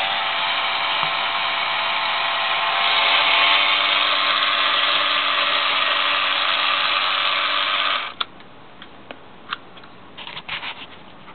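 Model submarine's electric drive motor running steadily on the bench, then switched off suddenly about eight seconds in, followed by a few light clicks and taps.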